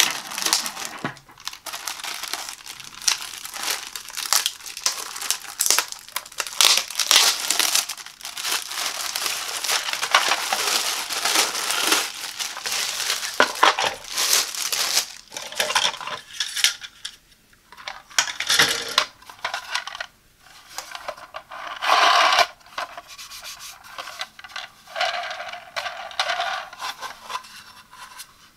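Thin plastic wrap crinkling and tearing as it is pulled off a hard plastic coffee-pod carousel. This is continuous through the first half, then it turns into intermittent crinkles, clicks and knocks as the hard plastic parts are handled and set down.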